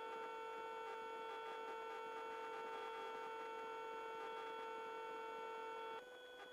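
Steady whine with a stack of even overtones heard through a helicopter's intercom audio feed, with no rotor thump. It drops slightly quieter about six seconds in.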